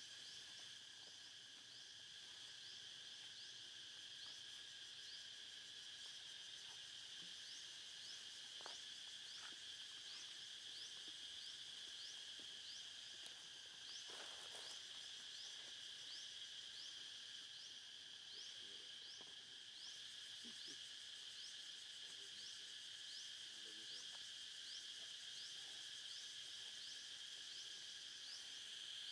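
Faint, steady chorus of insects, with a short rising chirp repeating a little more than once a second over a continuous high drone.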